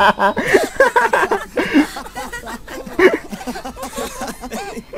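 Voices exclaiming and laughing, with no clear words.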